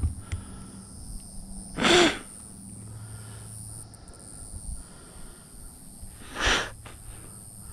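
Two short, sharp breaths or snorts from the e-bike rider, one about two seconds in and another near the end, over a faint steady hum.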